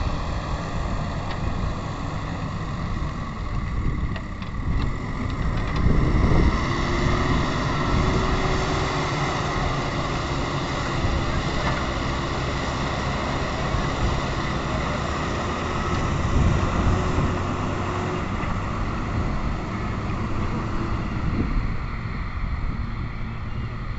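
Diesel engine of a JCB backhoe loader running steadily under work, its level swelling for a few seconds about six seconds in and again around sixteen seconds.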